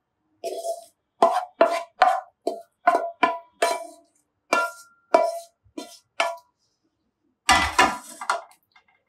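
Wooden spatula knocking vegetables out of a frying pan against the rim of a glass baking dish: a quick run of about a dozen clinks, each ringing briefly. Near the end comes a heavier clatter as the frying pan is set down on the gas hob's grate.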